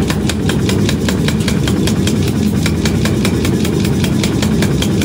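A 50 kg mechanical power hammer running and striking a red-hot steel cleaver blank with rapid, evenly spaced blows, several a second, over the steady rumble of the machine, drawing out the blade while it is forged hot.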